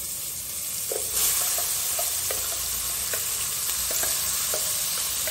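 Hot oil in a steel pot sizzling as ground masala paste goes into it from a mixer jar. The sizzle grows louder about a second in, with short spattering pops throughout.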